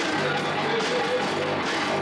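Loud live rock band playing: electric guitar with drums and cymbals.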